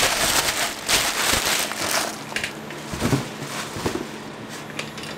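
Clear plastic bag crinkling and rustling as it is handled, busiest in the first couple of seconds and then quieter, with a few soft knocks about three and four seconds in.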